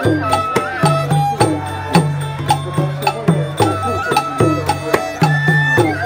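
Live traditional Thai folk ensemble: a barrel drum beating about twice a second under a melody of held, sliding notes from a wind pipe and fiddle, with a plucked lute.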